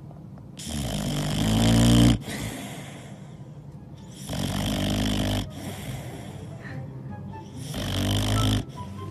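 A sleeping boxer dog snoring: three long snores about three and a half seconds apart, the first the loudest, each swelling and then cutting off sharply.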